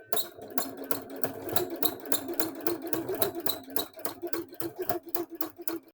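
Modern sewing machine sewing with a vintage Singer ruffler foot attached: a steady motor hum with a click about six times a second, stopping abruptly near the end. It runs a little squeaky, which the owner thinks means the ruffler probably needs some oil.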